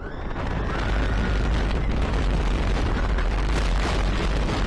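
Wooden roller coaster train running fast down a drop: wheels rumbling on the wooden track under heavy wind buffeting the microphone. The noise builds over the first second, then stays loud and steady.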